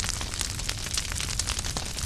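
Wood fire burning in a fireplace: firewood crackling with many quick sharp pops over a low steady rumble of the flames.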